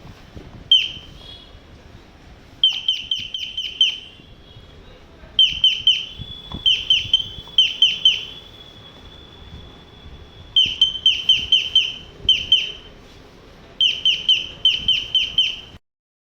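Bluetooth doorbell chime playing an electronic bird-chirp tone: quick falling chirps in groups of three to six, with a steady high tone held for a few seconds in the middle. It cuts off suddenly shortly before the end.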